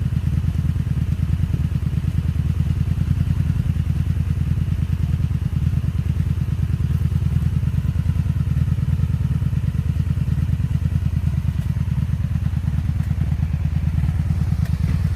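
Honda Magna VF750C's V4 engine idling steadily with a fast, even low pulse. The owner is chasing a misfire and popping on the right-side cylinder bank.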